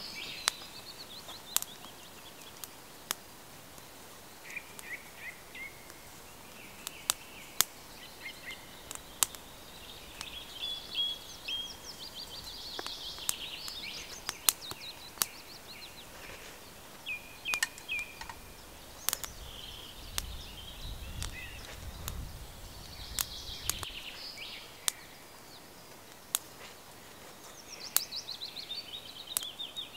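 Woodland songbirds singing short phrases and descending trills, over sharp, scattered clicks of wood crackling in a small burning twig stove. A low rumble comes in for a few seconds past the middle.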